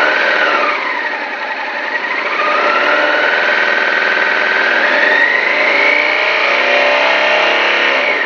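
Honda Africa Twin motorcycle engine being revved. A quick blip rises and falls back within the first second or so, then the revs climb slowly over a few seconds, hold, and drop away near the end.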